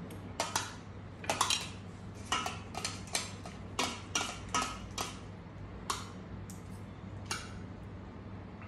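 Metal spoon clinking against the side of a stainless steel pot while a noodle salad is stirred: a quick run of bright clinks over the first five seconds, then two more, spaced apart. A low steady hum runs underneath.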